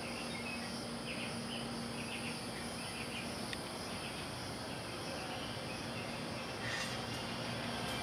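Outdoor ambience of insects trilling steadily and high-pitched, with a few short chirps in the first few seconds and a faint low steady hum underneath.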